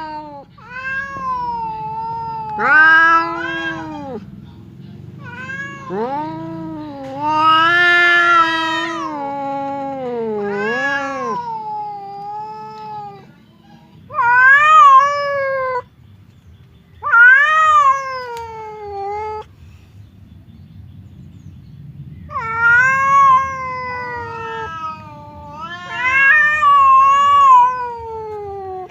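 Two domestic cats caterwauling at each other in long, wavering, drawn-out yowls that rise and fall in pitch, in several bouts with short pauses. It is a territorial standoff, the threat calls that come before a fight.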